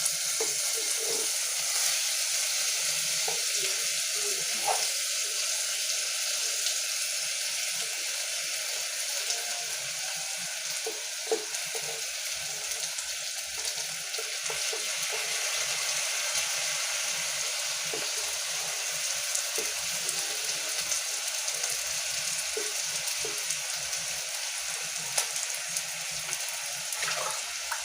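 Raw rice frying in hot oil in a sufuria, a steady sizzle with a few light knocks now and then.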